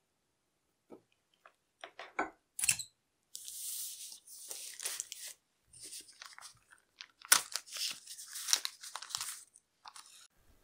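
A few light clicks and knocks, then clear plastic film and paper sheets crinkling and rustling in two spells as they are handled and shifted.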